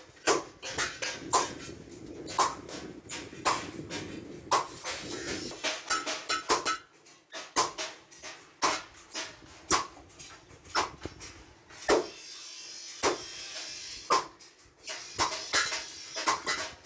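Hammer blows on an iron griddle (tawa) at the joint where its handle is fixed: sharp metallic taps, about two a second and somewhat irregular, some with a short ring.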